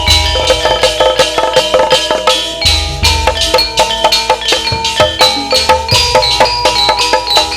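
Live-style music with a fast run of struck, ringing melody notes over low drum strokes.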